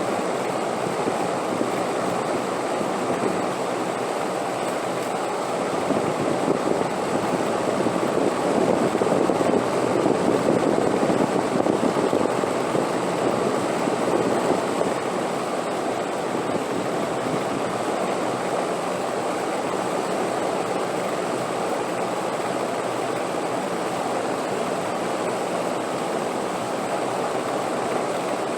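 Wind blowing steadily, a continuous rushing noise that swells louder from about six seconds in and eases back to its earlier level about fifteen seconds in.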